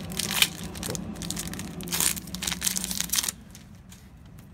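Plastic trading-card booster pack wrappers crinkling and crumpling in the hands. The dense crackle stops abruptly about three seconds in.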